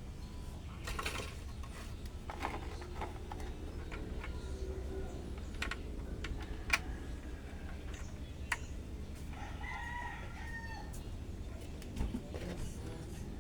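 A rooster crowing once, about two-thirds of the way in, over a low steady hum with scattered sharp clicks and taps.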